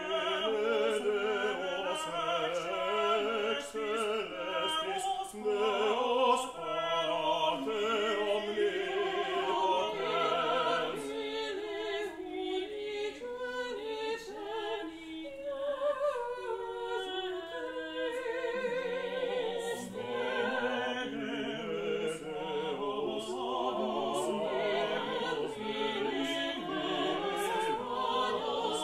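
Small mixed-voice vocal ensemble singing a cappella in several parts, the voices sustained with vibrato.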